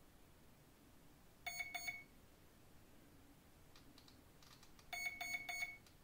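Flycolor brushless ESC beeping its programming-menu codes through the boat's brushless motor: two short beeps about a second and a half in, then a quicker run of short beeps near the end. These are the Low Voltage Protection cutoff settings, where two short beeps stand for 2.6 V.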